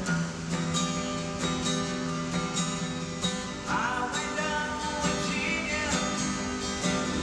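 Music: an acoustic guitar strummed in a steady rhythm, with a short higher melody line coming in about halfway through.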